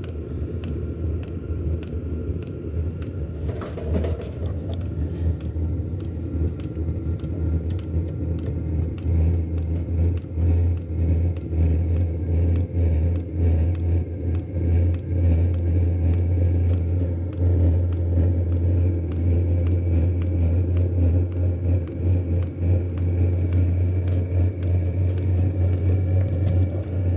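Diesel air heater running: a steady low rumble and hum, growing louder about nine seconds in, with light regular ticks throughout.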